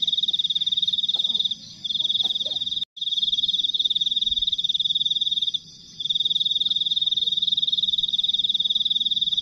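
A night-calling animal's high, fast-pulsing trill, going almost without letup and pausing briefly twice, about one and a half and five and a half seconds in. All sound cuts out for an instant near three seconds in.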